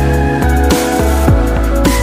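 Electronic background music with deep bass and a steady beat.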